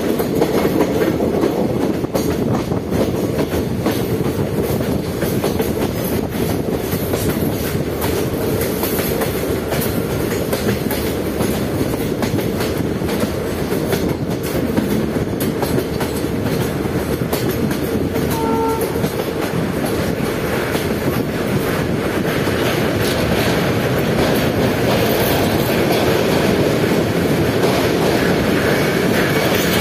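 A train running along the track: a steady, loud rumble of wheels on rails with clickety-clack over the rail joints. It grows a little louder and brighter in the last third.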